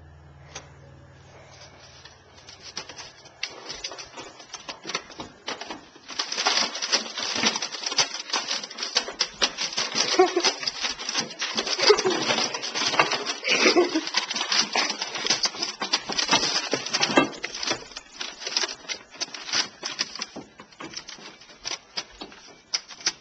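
Golden retriever puppy scrabbling at a vacuum cleaner: a dense run of rapid scratching and clattering clicks, heaviest from about six seconds in, with a few short low growly sounds mixed in. The clattering thins out near the end.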